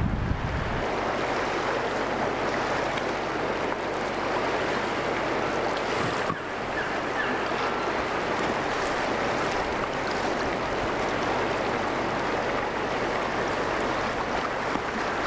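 Steady rushing roar of a river in flash flood, with some wind buffeting the microphone.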